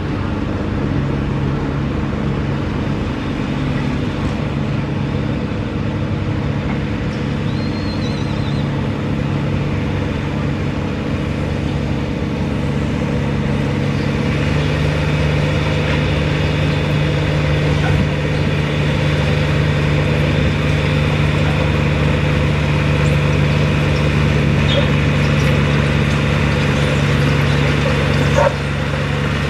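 John Deere farm tractor's diesel engine working steadily under load as it drags a weight-transfer sled. The engine holds an even pitch and grows louder about halfway through as the tractor comes closer. A short sharp knock sounds near the end.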